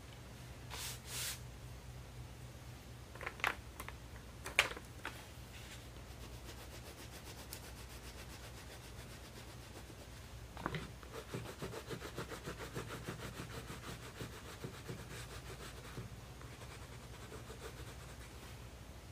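Caran d'Ache Neocolor II water-soluble wax crayon scribbled onto toothy mixed-media sketchbook paper in quick back-and-forth strokes, starting about halfway through. Earlier, a few sharp taps and knocks as the crayons and sketchbooks are handled.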